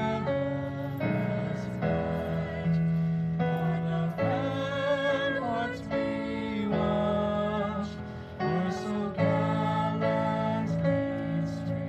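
A small group of female voices singing slow held notes with vibrato, accompanied by an electronic keyboard with a piano sound, amplified through PA speakers.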